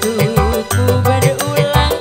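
Live dangdut band music: a steady, fast drum beat over bass and keyboard-like melody lines.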